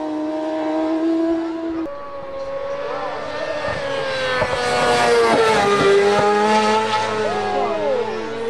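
Racing sport-motorcycle engines at high revs. A steady high engine note cuts off about two seconds in, then several engine notes follow whose pitch rises and falls.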